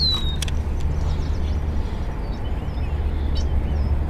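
Small birds chirping and calling along the river: a falling whistle at the start and short chirps later on, over a steady low rumble. Two or three short sharp clicks.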